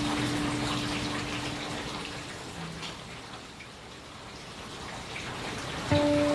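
Rain falling steadily, a continuous patter and hiss. Over it, a soft held musical tone fades away in the first two seconds, and another starts suddenly just before the end.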